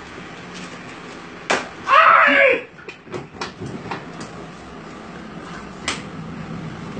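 Sharp slaps and smacks of a barber's hands on a customer's head during a vigorous head massage, landing in an irregular string. About two seconds in, a voice cries out briefly, and this is the loudest sound.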